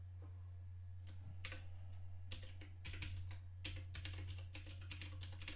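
Typing on a computer keyboard: a few separate keystrokes, then a quicker run of key clicks from about halfway through, over a faint steady low hum.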